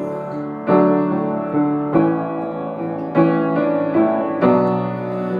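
Piano playing slow sustained chords, about five struck in turn, each ringing on into the next.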